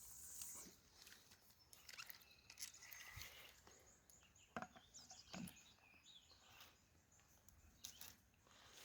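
Near silence: faint outdoor ambience with a few faint bird chirps and scattered light clicks.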